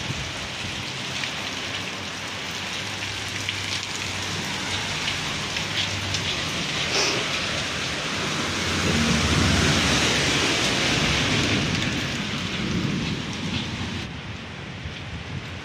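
Steady rain falling and pattering on hard surfaces. A deeper rumble swells about nine seconds in and then fades.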